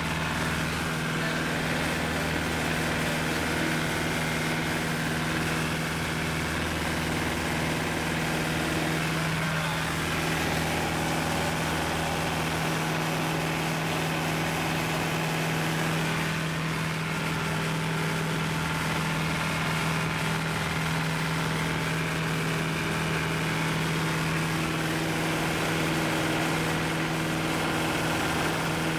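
Piper J-3 Cub's four-cylinder air-cooled engine and propeller running steadily at takeoff and climb power, heard from inside the small cabin as a continuous drone.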